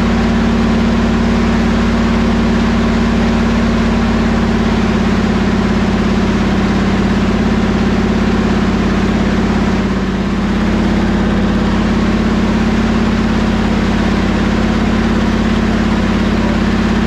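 Buick 455 V8 with a Stage 1 camshaft running steadily at a held speed during the new cam's break-in, with a brief slight dip about ten seconds in.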